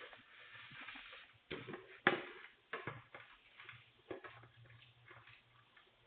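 Several sharp knocks and clicks through a Ring doorbell camera's thin-sounding microphone, the loudest about two seconds in, over a low steady hum.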